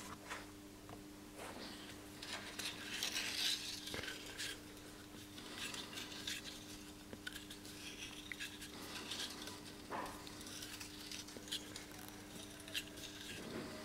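Faint handling sounds: fingers turning and rubbing a wooden sword grip wrapped in twisted wire, giving scattered small scratches and clicks over a steady low hum.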